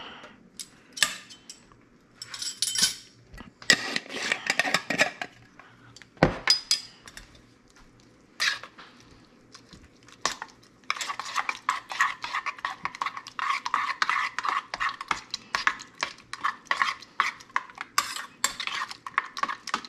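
A metal spoon stirring chunky salsa in a stainless steel bowl, scraping and clinking against the metal. Scattered single clinks and scrapes in the first few seconds as salt is scooped from a glass jar with a measuring spoon, then from about eleven seconds in rapid, continuous stirring clinks.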